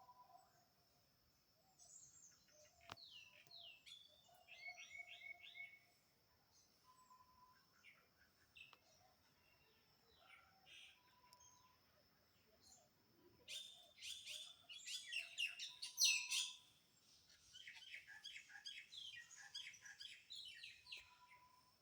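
Several birds chirping and calling, with bursts of fast chirps and trills that grow busiest past the middle. A short low note repeats every few seconds.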